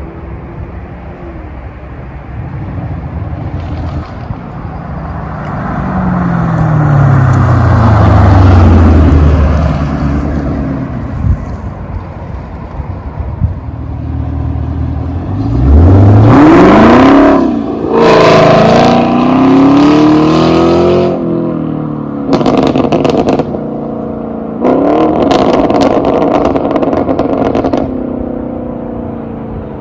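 Straight-piped 2019 Chevrolet Camaro SS with its 6.2-litre LT1 V8 and muffler delete. The car first drives past, its exhaust note falling in pitch as it goes by, then accelerates hard with the revs climbing steeply and breaking for upshifts of the 10-speed automatic. There are sharp exhaust cracks near the end.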